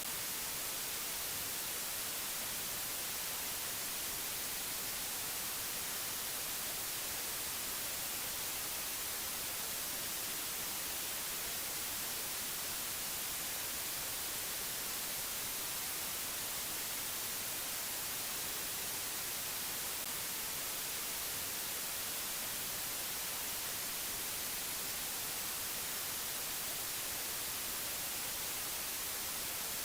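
Steady, even hiss like static or white noise, brightest in the treble and unchanging throughout.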